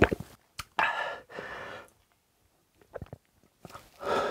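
A man's breathy, satisfied exhale just after gulping an iced drink, strongest about a second in and fading. A few short clicks follow, then another breath near the end.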